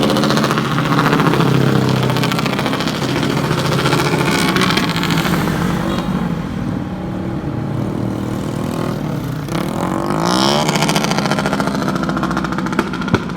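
Motor vehicle engines running and revving, with a rising rev about ten seconds in and two sharp cracks near the end.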